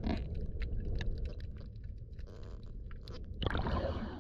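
Underwater sound: a low rumble with scattered sharp clicks and crackles, then, about three and a half seconds in, a rush of water as the camera breaks the surface.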